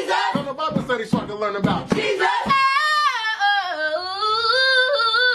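A voice in a meme soundtrack: quick, choppy vocal sounds for about two and a half seconds, then one long high sung note that dips down and climbs back up in pitch.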